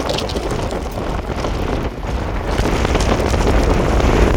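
Wind buffeting the microphone: a loud, low rumbling noise that grows stronger about halfway through.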